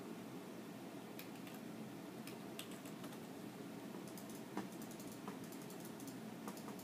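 Hamster gnawing and chewing food, a string of small crisp clicks and crunches, scattered at first and coming thicker from about four seconds in.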